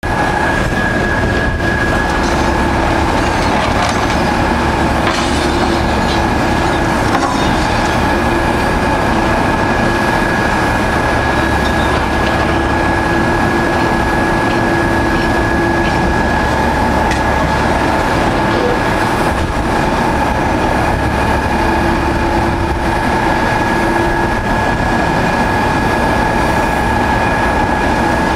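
Excavators' diesel engines and hydraulics running steadily, a constant high whine over a low drone that swells several times as the machines work.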